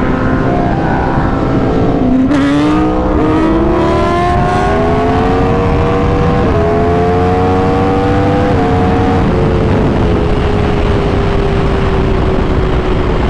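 Aprilia sport motorcycle's engine heard from the rider's seat under heavy wind rush. It pulls up in pitch from about two seconds in, with two quick upshifts around six and a half and eight and a half seconds, then holds a steady, slowly falling drone at highway speed.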